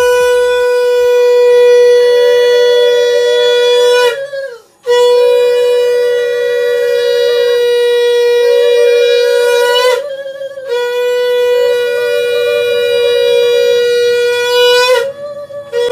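Conch shell (shankha) blown in three long, steady blasts of about five seconds each, with short breaks for breath; each blast bends up in pitch as it ends. It sounds during the aarti of the puja.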